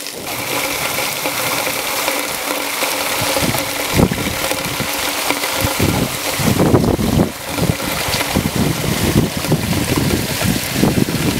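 Steady hiss of heavy rain falling, with low bumps of wind on the microphone at about four seconds in and again around seven seconds in.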